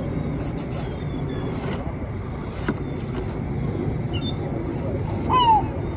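Steady low engine rumble of a fishing charter boat, with a couple of short high falling chirps and a faint tick.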